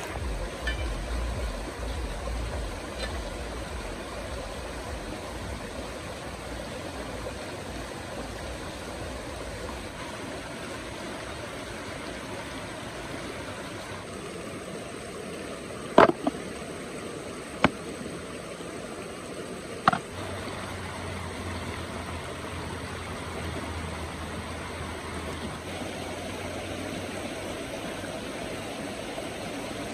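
Shallow stream running over rocks, a steady rushing water noise. Three sharp clicks a little past halfway stand out above the water.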